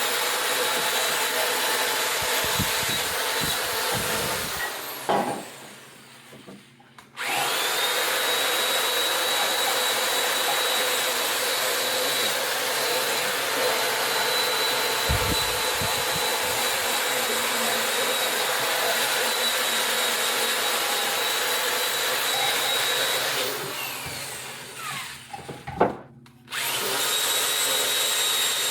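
A power tool with a wire brush runs steadily with a high whine, scrubbing rust and corrosion off a metal battery hold-down. It is switched off and winds down about four seconds in, with a few knocks of handling, and starts back up. The same happens again near the end.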